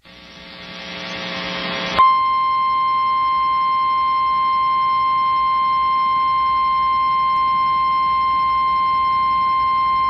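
Weather radio receiver hiss fading up, then about two seconds in the NOAA Weather Radio warning alarm tone starts: a single steady high-pitched tone near 1050 Hz, sounded ahead of a spoken severe weather warning.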